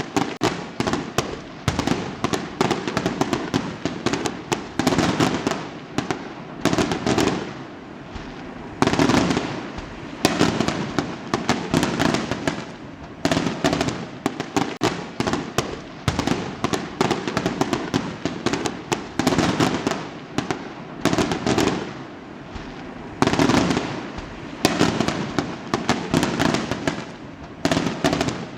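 Fireworks exploding in rapid, overlapping volleys: dense cracks and bangs that come in clusters every few seconds, with a constant crackle between them.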